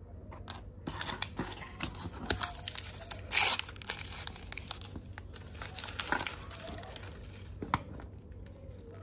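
Thin plastic toy-packaging wrapper being crinkled and torn open by hand: a run of crackles with one louder rip about three and a half seconds in. A single sharp click near the end.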